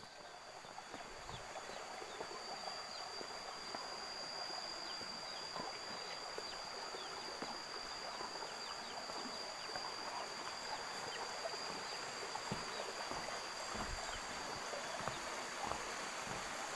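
Footsteps knocking on the slats of a bamboo footbridge, over the steady rushing of a rocky stream that grows louder as the bridge is crossed.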